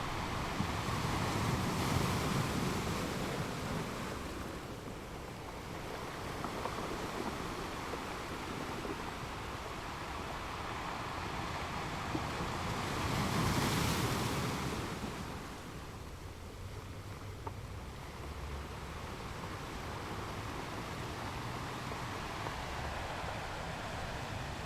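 Sea waves washing onto a shore: a steady surf noise that swells twice, about two seconds in and again near the middle, as a wave breaks and runs up.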